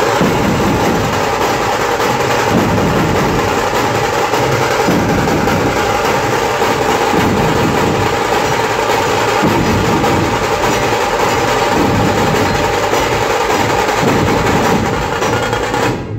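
A Maharashtrian dhol-tasha troupe playing together: many large dhol barrel drums beating a loud, steady rhythm with the sharp, fast strokes of the tasha drums over them. The sound cuts off suddenly at the very end.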